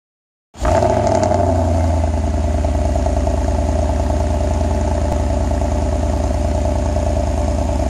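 2013 Porsche Cayenne GTS's 4.8-litre V8 firing up on a cold start, heard at the quad exhaust tailpipes. It comes in suddenly about half a second in and then runs at a loud, steady idle with a deep, even pulse.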